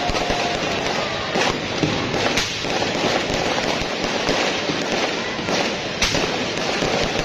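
New Year's fireworks going off in rapid succession: a dense, continuous crackling with many sharp bangs, the loudest about six seconds in.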